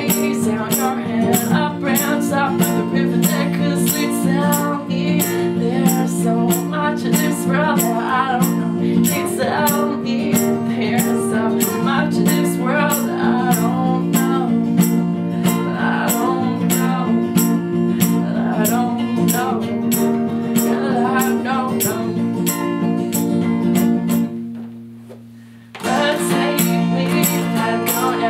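Acoustic guitar playing an instrumental passage, with a tambourine's jingles keeping a steady beat. About 24 seconds in the music fades and stops for a moment, then the guitar comes back in.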